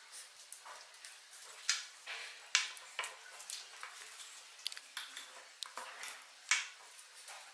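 Knives clicking and scraping against ceramic plates as apples and pears are cut up, with small handling noises of fruit being peeled. The clicks are irregular, with a few sharper ones.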